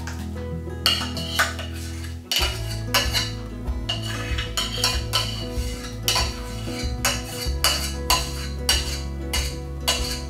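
Metal spoon scraping and clinking against a stainless steel saucepan as thick rice porridge is scooped out into a bowl, a quick run of scrapes and knocks starting about a second in.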